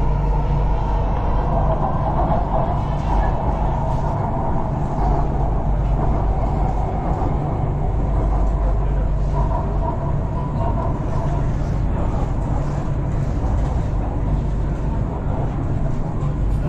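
Chennai Metro train running on an elevated track, heard from inside the carriage: a steady rumble of wheels and motors with a mid-pitched hum over it.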